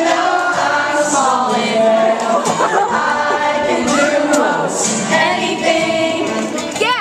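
A crowd of many voices singing together loudly, with a short wavering shout just before the end.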